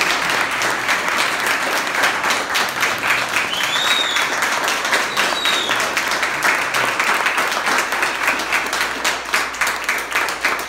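A small audience applauding steadily, many hands clapping at once, with two brief high calls rising above the clapping around the middle.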